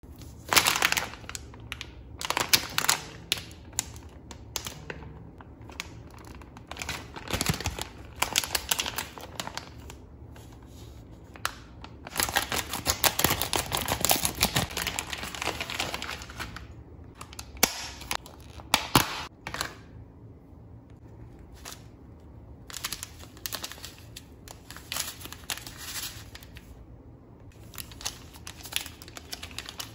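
A plastic candy-kit bag crinkling as it is handled, with a dense stretch of scissors cutting through the bag about halfway through. Near the end, foil sachets rustle and crinkle between the fingers.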